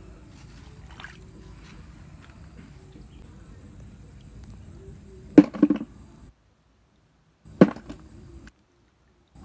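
A hand splashing and groping in shallow muddy water while searching for snails: a short run of loud splashes a little past halfway, then one more sharp splash about two seconds later. The sound cuts out completely twice.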